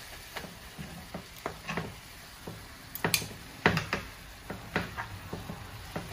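Metal tongs clicking and scraping in a frying pan as pieces of bone-in beef short rib are turned, about a dozen irregular clicks, over a faint sizzle of the meat browning in oil.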